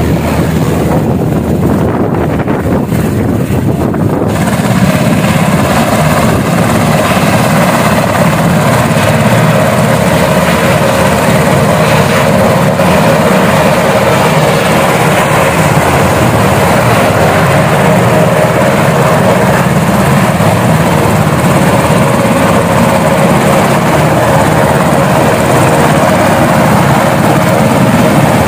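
Black Hawk military helicopter running loud and steady close by, its twin turbine engines and rotors turning as it sits on the ground. The sound grows brighter and a little louder about four seconds in.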